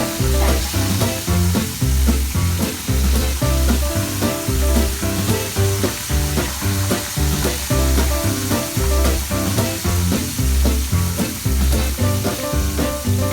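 Food sizzling as it fries in hot oil in a pan, under background music with a steady beat.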